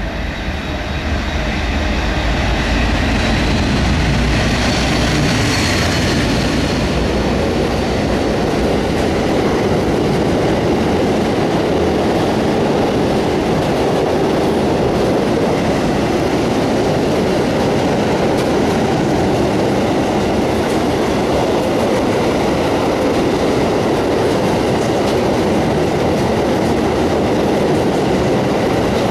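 Class 56 diesel locomotive 56312 running past at speed, its Ruston-Paxman V16 engine heaviest in the first few seconds. A long rake of intermodal container wagons then rumbles and clatters by over the rail joints.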